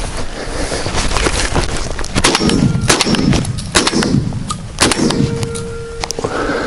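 Several sharp shots from an MR-155 semi-automatic shotgun, coming quickly one after another between about two and five seconds in, over the rustle of dry grass.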